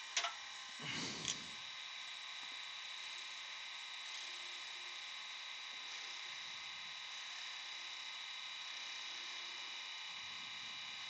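A few light knocks in the first second and a half, then a steady, faint electrical hum with a thin high whine.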